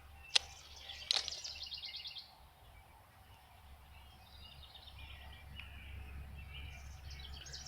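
Birds chirping in rapid trills over a steady low wind rumble on the microphone, with two sharp clicks in the first second or so.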